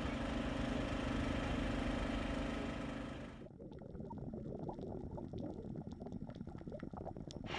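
Boat engine running with a steady hum. About three and a half seconds in the sound cuts to a muffled low rumble with scattered crackling clicks.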